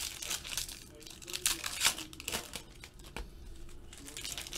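Foil trading-card pack wrappers crinkling as Bowman Chrome football packs are torn open and handled by hand, in irregular crackles, loudest about two seconds in.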